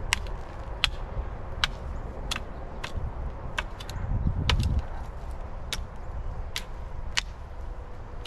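A 36-inch metal concrete rake being worked across a garden bed to level the soil, with sharp clicks about one every three-quarters of a second. A low rumble swells about four seconds in.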